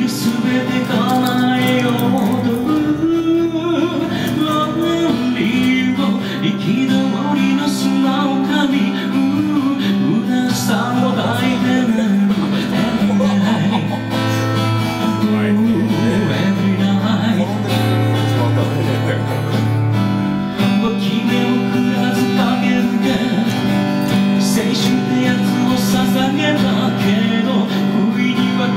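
Acoustic guitar strummed and picked, playing the chordal accompaniment of a slow pop song.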